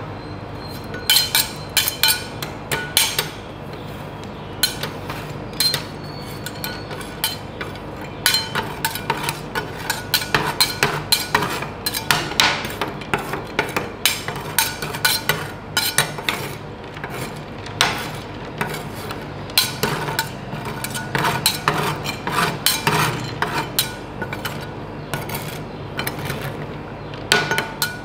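Steel spatulas chopping and tapping on a frozen ice cream plate, breaking up chocolate candies. The sharp metal clicks come in quick irregular runs with short pauses, over a steady low hum.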